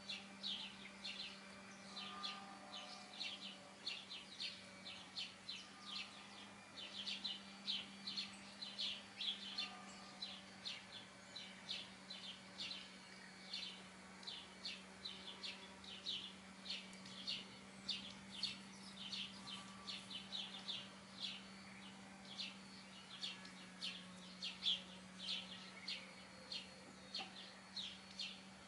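Brown hens foraging with a few soft, low clucks. Over them runs a continuous chatter of short high chirps, several a second, with a faint steady low hum beneath.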